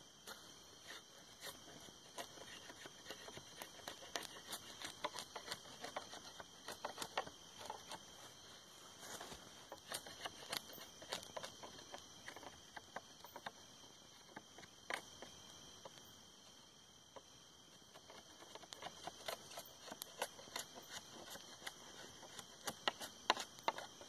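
Blade scraping and shaving bark off a green wooden pole in short, irregular strokes, with pauses between bursts of strokes.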